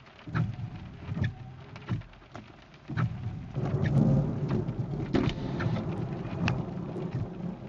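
Thunderstorm rain: raindrops tick sharply and irregularly on the camera and nearby surfaces. About three seconds in, a low storm rumble swells up and holds.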